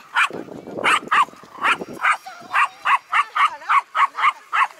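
Small dog barking over and over, short high-pitched barks at about three a second.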